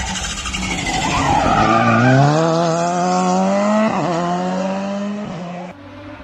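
Rally car accelerating hard, engine pitch climbing steadily, with a quick dip at a gear change about four seconds in before it pulls on again; tyres squeal briefly in the first second or so. The sound cuts off suddenly near the end.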